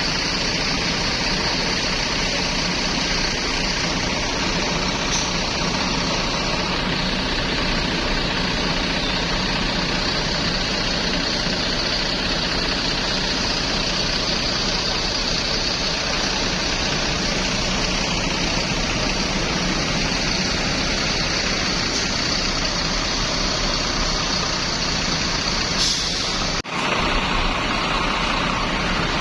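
Steady noise of a heavy road vehicle's engine running, with a constant high hiss over it. The sound cuts out for an instant near the end.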